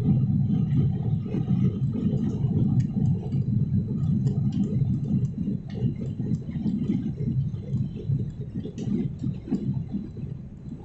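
Low, steady rumble of an airliner heard from inside the cabin, with scattered small clicks and rattles. It eases off toward the end.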